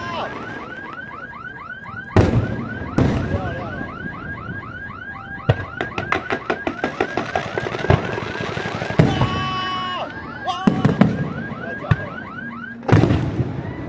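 Fireworks display: a rapid string of whistling fireworks, about three whistles a second, under sharp bangs of shells bursting. A run of crackling comes about six to eight seconds in.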